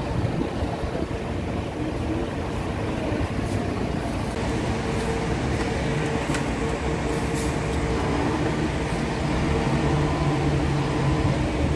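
Steady drone of an idling vehicle engine with traffic noise, a constant hum running under it.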